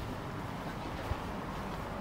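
Low, steady rumble of outdoor background noise, with a short click at the very start.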